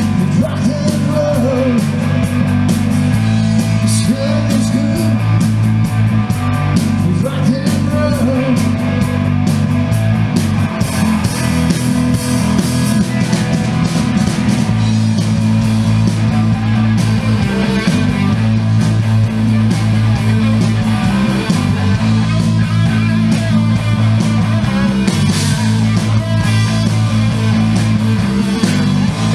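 A live rock band playing through the PA: amplified electric guitars over sustained low notes, loud and unbroken.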